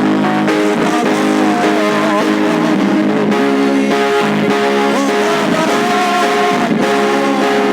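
Worship music with electric guitar and bass guitar playing steadily.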